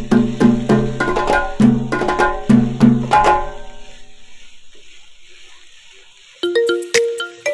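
Background music: a rhythmic tune of pitched drum-like hits that fades away over several seconds, then a new chiming, bell-like tune starts near the end.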